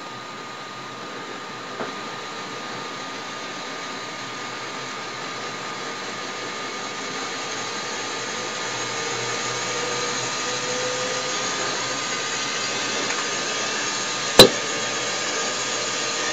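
Small electric motor of the Wheelaphone running and spinning its striped wheel: a steady whir and hiss with faint steady hum tones, slowly getting louder. A sharp click sounds once near the end.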